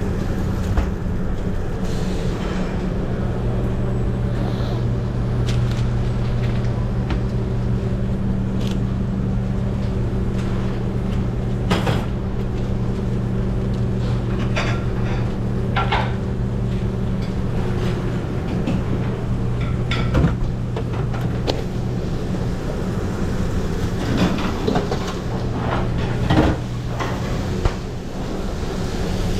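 Commercial kitchen noise: a steady mechanical hum from the kitchen's equipment, with scattered clicks and clatters of pans and utensils.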